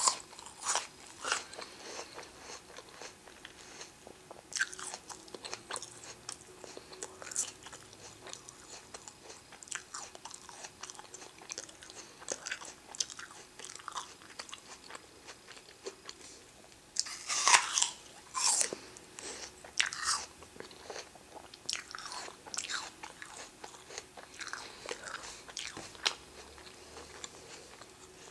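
Close-miked crunchy chewing and biting of crisp food, with irregular crackling crunches and a louder run of bites a little past halfway.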